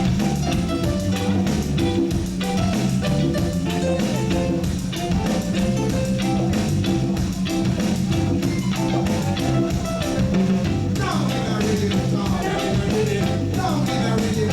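Live reggae band playing a song, with a heavy bass line, drums and percussion keeping a steady beat, and a voice singing over it in the last few seconds.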